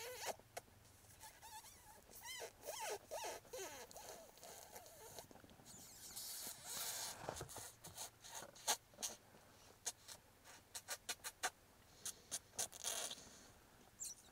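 Lip-squeak predator calling: a hunter squeaking through pursed lips to call in a gray fox, a run of high, wavering squeaks followed by a scatter of short sharp smacks and clicks.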